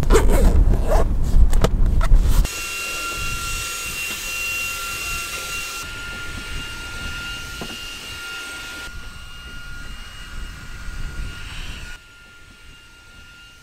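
Wind buffeting the microphone, with handling clicks, for the first couple of seconds. Then a small quadcopter drone's propellers give a steady high whine over a hiss. It drops to a faint whine about two seconds before the end.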